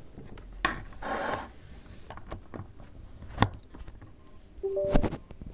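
Handling noises as a hard disk is connected to a test cable: scattered clicks and knocks, a short rubbing scrape about a second in, a sharp click a little past three seconds, and a brief two-note beep with knocks near the end.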